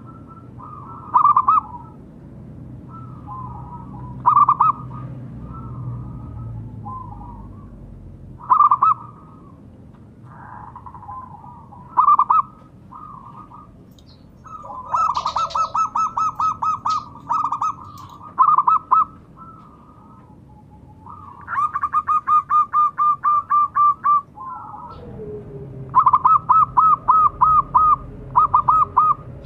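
Zebra dove (perkutut) cooing: a few short, loud single coos, then from about halfway three long runs of rapid staccato notes, with fainter calls in between.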